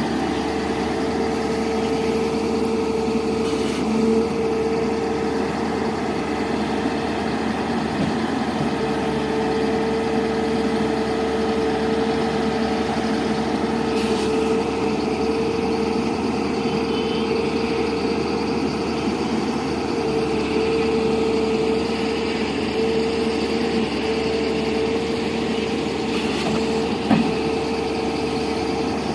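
Hydraulic excavator running steadily, its diesel engine holding a constant note with a steady whine over it, and a few brief knocks.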